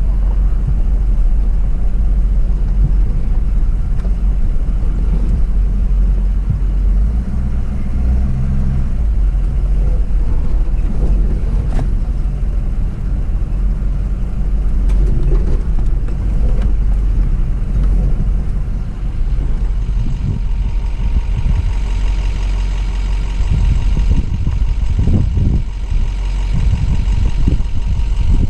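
Truck engine and drivetrain rumbling low and steady as the truck drives slowly over a rough, rocky dirt trail, with a few knocks from the bumps. A faint high whine joins in about twenty seconds in.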